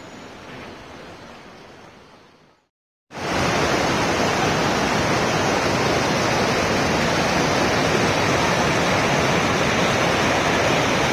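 A fainter rush fades out to a brief silence about three seconds in. Then comes a loud, steady rush of a fast stream tumbling over rocks.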